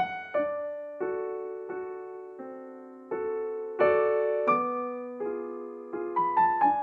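Slow background piano music: single notes and chords struck about once or twice a second, each one dying away before the next.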